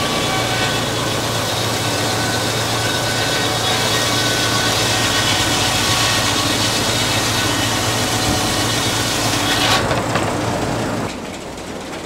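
Antique sawmill's large circular blade cutting lengthwise through a log: a loud, steady sawing noise over a low steady hum. Shortly before the end the cutting noise falls away and a quieter steady running remains.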